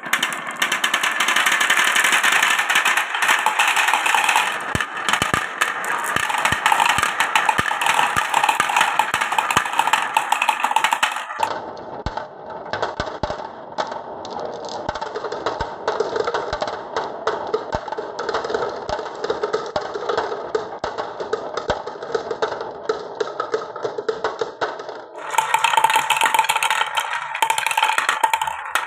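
Glass marbles rolling and clattering down a wooden marble run, a dense stream of clicks and rattles. The sound changes abruptly about 11 seconds in and again about 25 seconds in.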